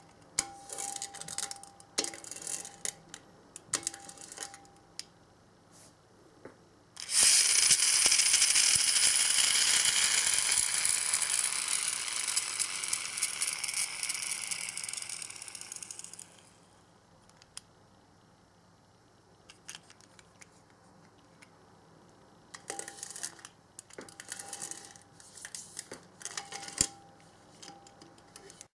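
Choro-Q pull-back toy car: small clicks and rattles as it is handled, then a loud whirring that starts suddenly and slowly dies away over about nine seconds, its pitch sinking as the spring motor runs down; more small clicks near the end.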